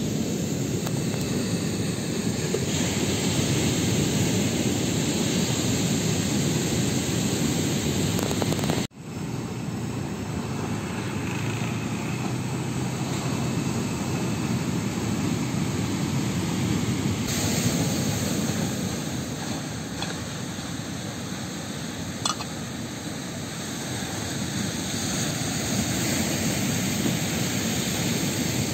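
Steady rushing noise of sea surf and wind, dropping out for an instant about nine seconds in.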